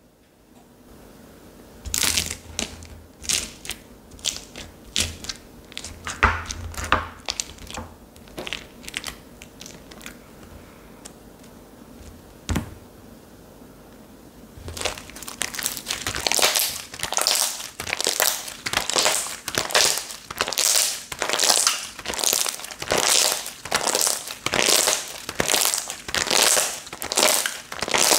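Slime being squeezed and pressed by hand, giving crisp crackling and popping sounds: scattered at first, then from about halfway a steady rhythm of presses at a little over one a second.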